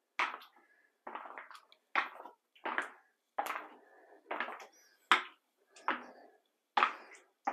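Footsteps in spiked epoxy shoes on a freshly coated floor: a clattering step about every 0.8 seconds, at a steady walking pace.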